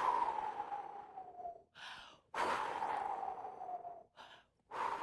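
A woman blowing through pursed lips to imitate the wind: long breathy whooshes, each with a faint whistle-like tone that slowly falls in pitch, with a quick in-breath between them. There are two full whooshes, and a third begins near the end.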